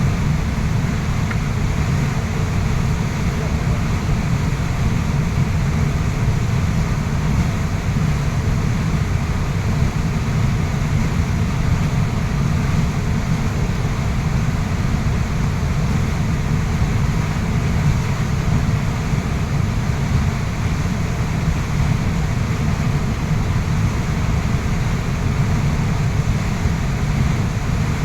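Waterfall: a loud, steady rush of falling water, heaviest in the deep end, unchanging throughout.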